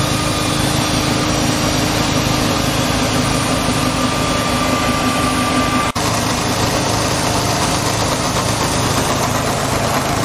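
Electric core drill running steadily under load while a diamond bit cuts core samples out of shotcrete test panels, with a brief break about six seconds in.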